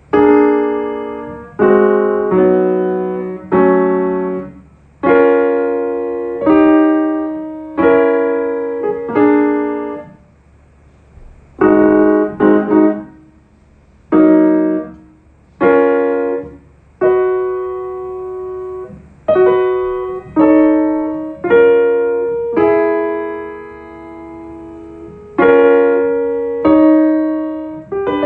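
Slow piano chords, one every second or two, each struck and left to ring and fade, with a short break about ten seconds in.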